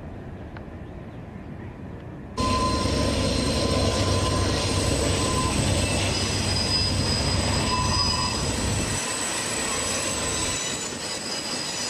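Long double-stack container freight train rolling through a tight curve. A faint low rumble jumps suddenly louder about two and a half seconds in, with heavy rumble under steady high-pitched squeals from the wheels grinding on the curve.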